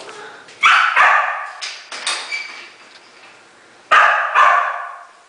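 Dogs barking in a shelter kennel room: a volley of sharp barks about a second in and another about four seconds in, echoing off the room.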